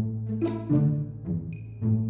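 Background music: a held low bass note under a series of struck notes that each ring and fade, starting abruptly.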